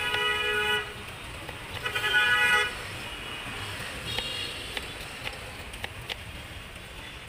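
A vehicle horn sounds twice in steady held toots, the first lasting under a second and the second about two seconds in, with a shorter, fainter toot around four seconds. Between them come light clicks of a knife cutting peeled guava on a wooden board.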